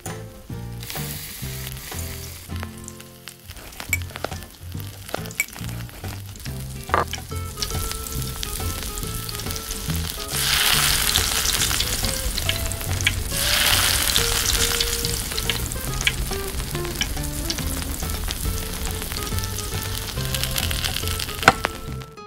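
Fish pieces frying in hot oil in a miniature wok, a steady sizzle that is loudest in the middle, with a few light clicks. Soft background music plays underneath.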